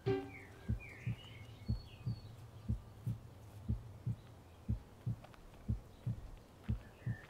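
A low, heartbeat-like double thump repeating about once a second over a steady low hum, part of a film soundtrack's sound design. Birds chirp faintly over it in the first couple of seconds and again near the end.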